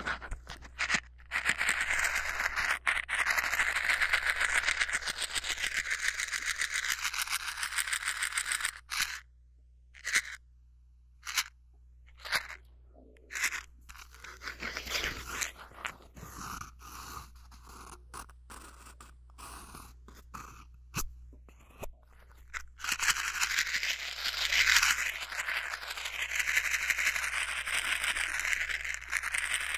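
A matchbox handled right at a binaural microphone: matches rattling inside and the cardboard box scraping. A long stretch of dense rattling and scraping gives way to a run of short separate shakes and softer handling, and the loud rattling returns near the end.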